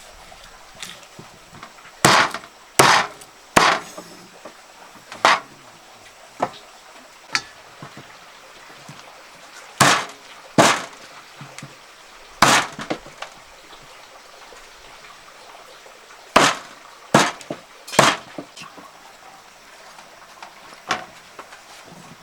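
An uneven series of sharp knocks, about a dozen, some coming in quick groups of two or three, each ringing briefly.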